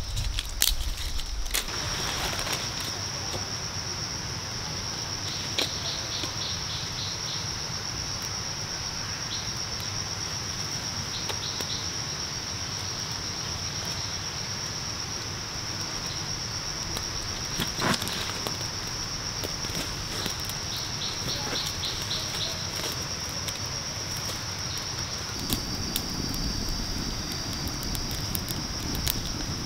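Steady high-pitched insect chirring, with a rapid pulsed trill from another insect coming in a few times. Under it is the soft crackle and rustle of a small kindling fire being started, with a sharp snap about 18 seconds in and a low rushing noise joining near the end.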